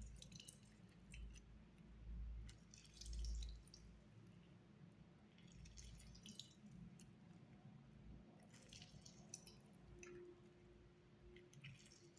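Faint, wet squishing and dripping in several short clusters, from lemons being cut and squeezed by hand.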